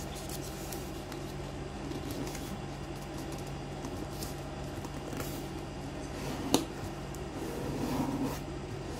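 Origami paper being folded and creased by hand: soft rustling and rubbing, with one sharp tap about two-thirds of the way through, over a steady low hum.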